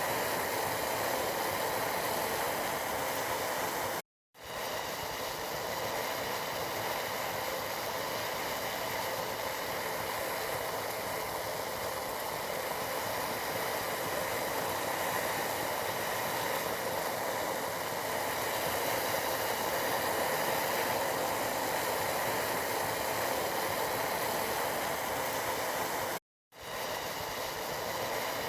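Tea boiling in a pot, a steady bubbling hiss that cuts out to silence for a moment twice.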